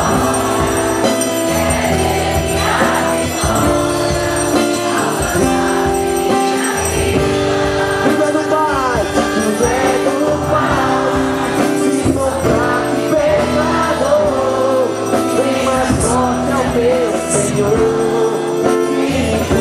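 Live Christian worship music: a sung melody over sustained held chords.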